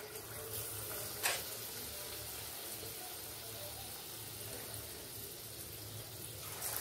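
Kuttu (buckwheat-flour) battered potato pakoras sizzling in hot oil in a kadhai as they are dropped in, a steady frying hiss. A short clink comes a little over a second in.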